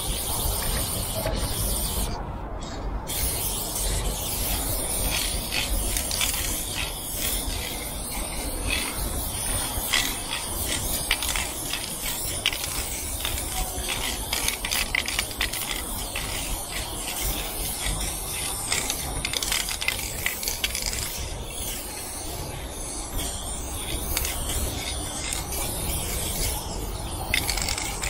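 Aerosol spray-paint can hissing as paint is sprayed onto the ribbed metal side of a train car, broken by many short clicks, over a low rumble.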